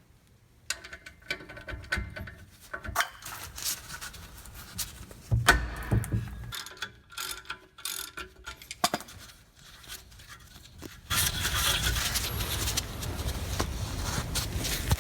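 Big ratchet with an 18 mm socket working the Sprinter's rear brake caliper bracket bolts: scattered clicks and knocks of metal on metal, then, from about eleven seconds in, a continuous loud rasp of fast ratcheting.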